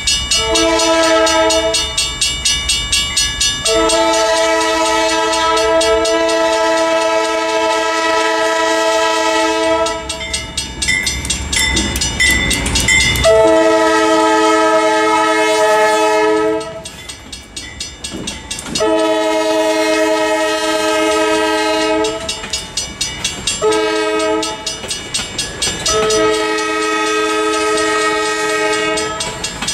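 Multi-note air horn of a GE B39-8 diesel locomotive sounding a run of long blasts with one shorter one near the end: the crossing warning as the train passes a level crossing. The diesel engines rumble past about midway between blasts, and a mechanical crossing bell rings steadily behind.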